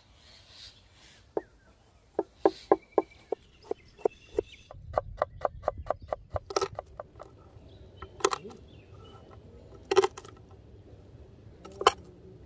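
Large knife chopping fresh ginger and garlic on a wooden cutting board: a quick run of knocks of the blade striking the board, several a second, then fewer, louder single chops a second or two apart.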